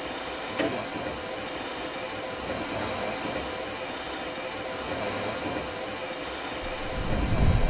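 Standing Queensland Railways C17 class steam locomotive 1072 hissing steam steadily while at rest, with a faint steady tone under the hiss. A short click about half a second in, and a louder low rumble near the end.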